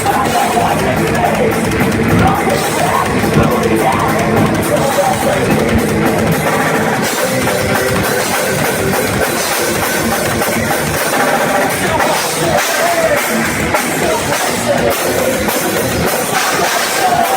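A rock band playing loud heavy rock live, with a pounding drum kit and guitar.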